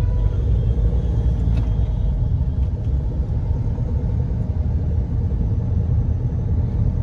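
Steady low rumble of a car in motion heard from inside the cabin: engine and road noise.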